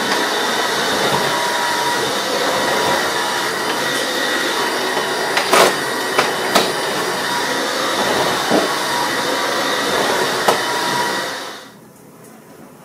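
Vacuum cleaner running steadily with a high whine, with a few sharp knocks as it is pushed about; it cuts off near the end.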